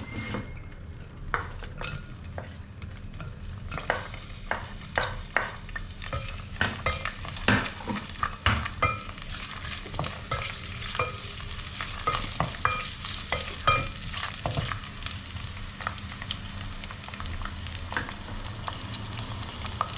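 Sliced onions sizzling in hot oil in an amber glass pot, stirred with a wooden spatula that knocks and scrapes against the glass in many sharp clicks. The stirring thins out over the last few seconds, leaving steady sizzling.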